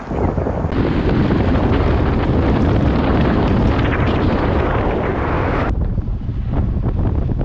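Loud rushing wind noise buffeting the microphone, with a sudden change in its sound about six seconds in.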